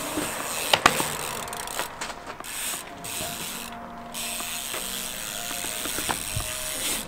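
Bicycle freewheel hub ratcheting steadily as the trial bike coasts. Sharp knocks of the bike on concrete come through it, the loudest two about a second in.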